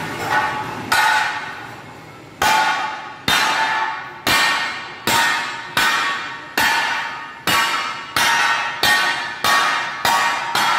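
Repeated sharp metallic clanks, each ringing on briefly, about one a second at first and quickening to nearly two a second near the end.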